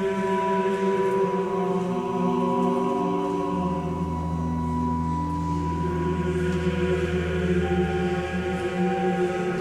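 Pipe organ playing slow, held chords that change every second or two. A deep bass note comes in about three and a half seconds in and stops near the end.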